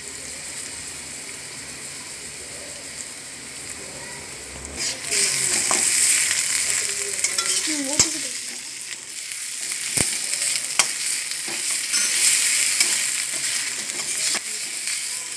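Sliced onions and garlic paste sizzling in hot oil in a wok while a steel spoon stirs and scrapes them. The sizzle gets louder about five seconds in, and the spoon taps sharply against the pan a couple of times.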